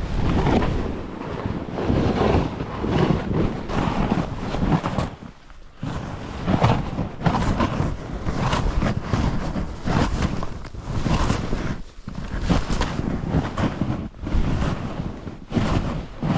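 Wind buffeting the microphone over the rasp of skis sliding on snow. The noise comes in irregular surges, with short lulls about five and a half and twelve seconds in.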